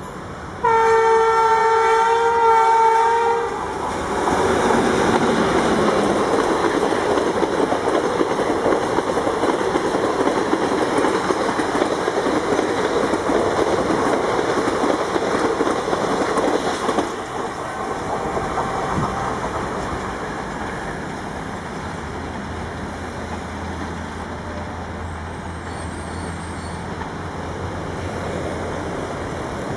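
Indian Railways WCAM-3 electric locomotive sounding its three-phase-loco (WAP-7/WAG-9) type horn in one steady blast of about three seconds. The locomotive and its short rake of express coaches then rush past at about 105 km/h. The rushing noise drops about halfway through as the train clears and trails off.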